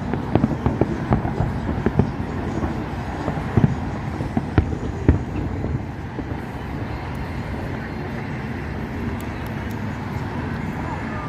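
Distant aerial fireworks going off in a rapid run of bangs and crackles over a steady low rumble. The bangs stop about halfway through, leaving only the rumble.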